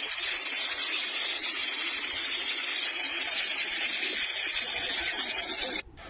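A C-130 Hercules's four turboprop engines heard close as the aircraft passes low: a steady, hissy roar that cuts off abruptly near the end.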